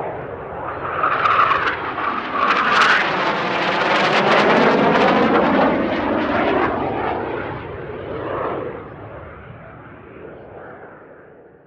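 An aeroplane flying past: its engine sound swells, is loudest about four to six seconds in, then fades away toward the end.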